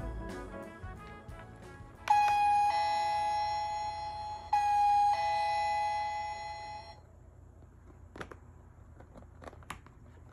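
Toy dollhouse's battery-powered electronic doorbell playing a two-note ding-dong chime twice, a higher tone then a lower one each time. A few light plastic clicks follow near the end.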